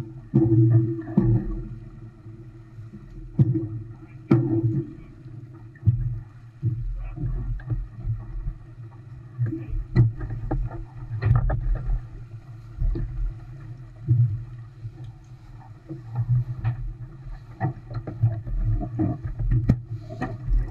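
Water rushing and slapping along an Olson 25 sailboat's hull as it sails, a rough, uneven rumble with frequent irregular knocks and thumps.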